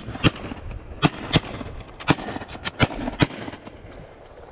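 Several waterfowl shotguns, 10 and 12 gauge, fired at geese in a ragged volley: about nine sharp shots overlapping over roughly three seconds, then they stop.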